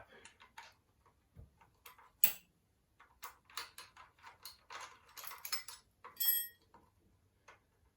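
Scattered clicks and light knocks of metal parts and tools being handled, with a louder knock about two seconds in and a short ringing metal clink about six seconds in.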